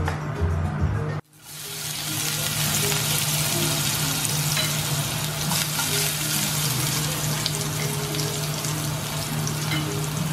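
Minced garlic sizzling in hot oil in a nonstick frying pan, stirred now and then. The steady frying hiss starts suddenly about a second in.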